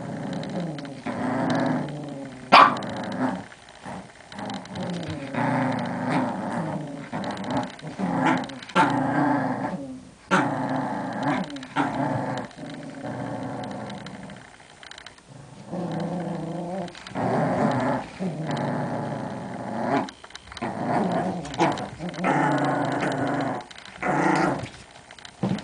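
Small dogs growling in play as they tug at a blanket, in long growls of a second or two with short breaks between them. A sharp, loud sound cuts in about two and a half seconds in.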